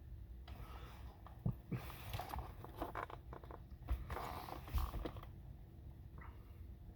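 Eating and drinking noises up close: three or four short bursts of rustling and mouth sounds with a few soft knocks.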